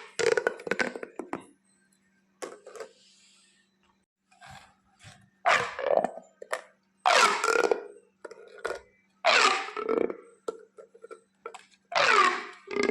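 Plastic pop tubes being pulled and squashed. Each stroke gives a short ribbed zipping burst that falls in pitch, a second or two apart.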